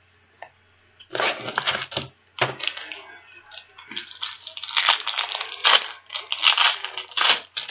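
Wrapper of a baseball card pack being torn open and crinkled, starting about a second in as irregular crackling rustles.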